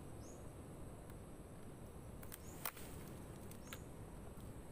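Faint outdoor background with a few short high chirps of small birds and several sharp clicks of a phone being handled, the loudest click a little past halfway.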